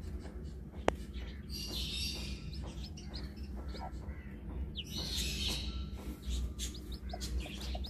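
Newly hatched chicks peeping: many short, high chirps coming in clusters. There is a single sharp click about a second in and a steady low rumble underneath.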